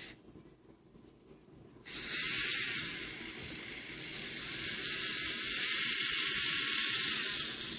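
Small electric motor of a hobby remote control car driving a wheel, a hissy high whine that starts suddenly about two seconds in. It eases off briefly, then runs faster and louder before fading near the end: its speed is being changed by the pulse-width control.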